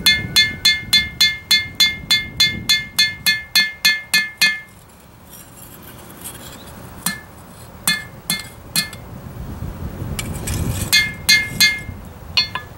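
Hand hammer forging a steel knife blank on an anvil, each blow ringing brightly off the anvil. A quick run of about four blows a second for the first few seconds, then a pause, a few scattered blows, and a short last run near the end.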